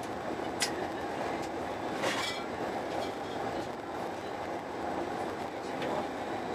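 Steady running noise of a moving Eurostar Italia passenger train, heard inside the carriage. There is a sharp click about half a second in and a short noise around two seconds.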